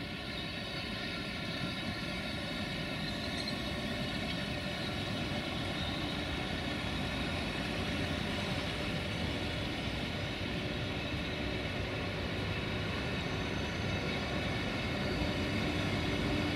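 A railway locomotive running with a steady, many-toned drone that slowly grows a little louder.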